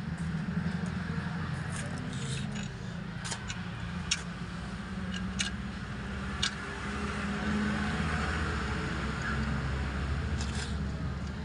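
An engine running steadily with a low hum, with a few sharp metallic clinks over it.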